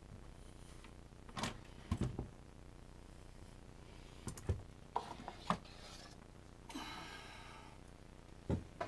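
Handling noises from a chainsaw being taken apart on a wooden workbench: scattered knocks and clicks of plastic and metal parts as the side cover comes off and the saw is moved, with a short rustling scrape about seven seconds in.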